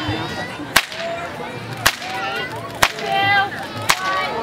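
Whip cracking four times, about once a second, each crack cutting a flower held in a person's mouth during a timed flower-breaking run. Crowd voices can be heard between the cracks.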